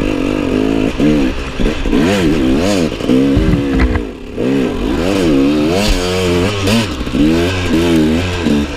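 Enduro motorcycle engine being ridden off-road, revving up and down again and again as the throttle is worked, with a brief drop in revs about four seconds in.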